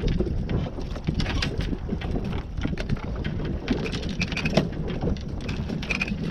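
Wind buffeting the microphone on an open fishing boat, a steady low rumble with scattered knocks and clicks of handling on deck.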